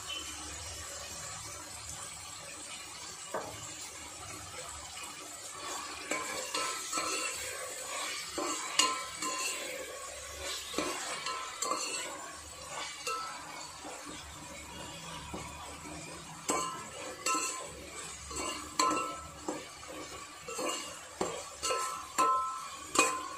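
Tomatoes, onions and green chillies sizzling in oil in a metal pot while a spoon stirs them, scraping and knocking against the pot. The stirring strokes start about six seconds in and come in quick runs, loudest near the end.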